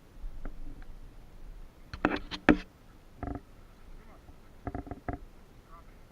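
Dogs barking in short bursts while they play: a quick cluster about two seconds in, a single bark a second later, and three quick barks near the five-second mark.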